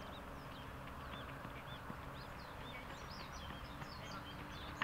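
Small birds chirping: many short, quick chirps that rise and fall, overlapping one another, over a steady outdoor rush of noise. A single sharp tap right at the end.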